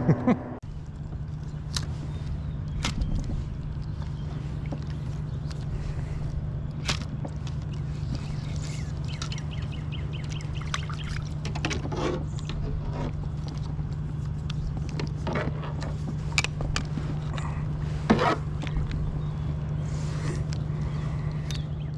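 Water splashing and dripping around a kayak as it is moved on the river, with scattered light knocks and a steady low hum throughout.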